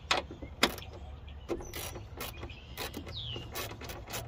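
Hand ratchet on a socket extension clicking in short, irregular strokes as a bolt is loosened and turned out. The two loudest clicks come in the first second.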